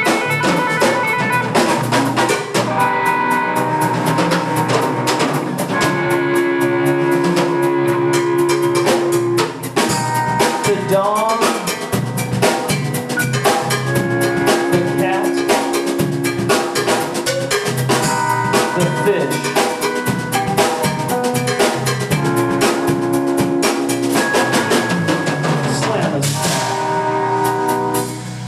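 Live rock band playing with no singing: electric guitar and bass over a drum kit keeping a steady beat, with held notes and a rising bend about eleven seconds in.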